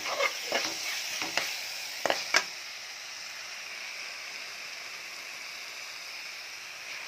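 Onion-tomato masala with freshly added chopped tomatoes frying in oil in a metal kadai, sizzling steadily. A metal ladle stirs it, scraping and knocking against the pan several times in the first couple of seconds, then only the sizzle continues.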